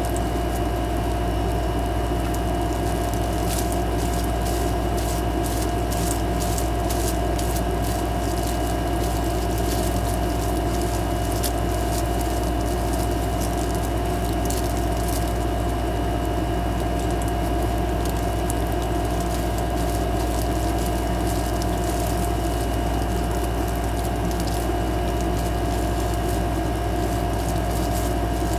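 A steady machine hum with a constant low rumble and a few held whining tones, unchanging throughout, with light rustling and ticking from gloved hands working dye through hair.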